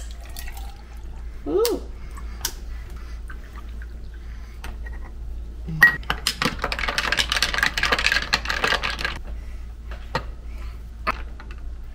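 Kitchen clicks and light knocks, then about three seconds of liquid pouring into a glass while an iced macchiato is made.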